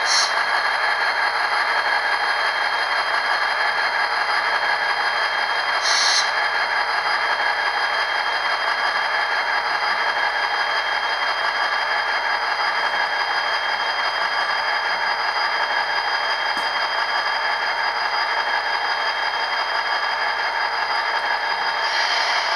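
HO scale Rapido F40PH-2D model diesel locomotive crawling at speed step one, a steady mechanical running sound with a constant whine. There are brief higher hisses near the start, about six seconds in, and near the end.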